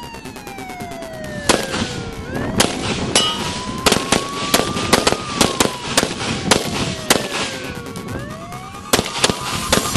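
Rapid, irregular rifle gunfire, several shots a second, starting about a second and a half in, over a wailing siren that rises and falls slowly.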